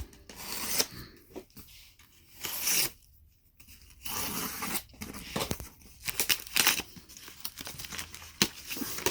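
Packing tape tearing off a cardboard shipping box and packing material crinkling as the box is opened, in irregular strokes with a few sharp clicks and a short pause about three seconds in.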